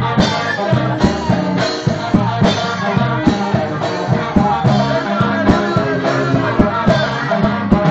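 Loud music with singing over a steady drum beat.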